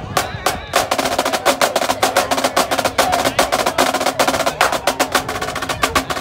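Marching drumline playing a fast cadence led by the snare drums, crisp rapid stick strokes. A few separate hits open the passage, then from about a second in the strokes come in a dense, fast run.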